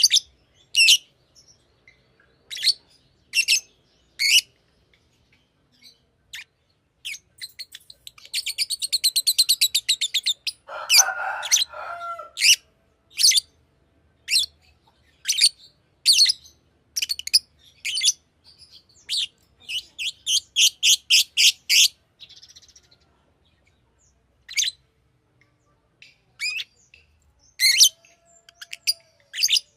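Fischer's lovebird calling in sharp, high-pitched chirps, spaced irregularly. There is a fast chattering run about eight seconds in and another around twenty seconds, and a lower, rougher squawk around eleven seconds.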